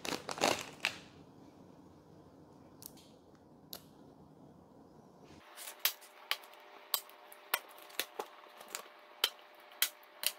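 Brief rustle of packaging, then sharp metallic clicks about two a second from about halfway through: small magnets clicking onto the laser engraver's metal base.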